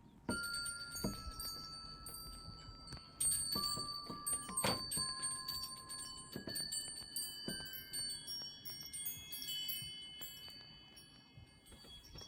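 Chimes ringing: struck bell-like notes that ring on and fade, a few stepping down in pitch one after another, over a steady scatter of high tinkling strikes.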